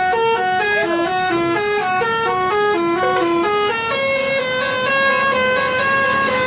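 Bus telolet horn, a multi-tone musical air horn, playing a quick tune of stepping notes. From about four seconds in it settles into longer held notes.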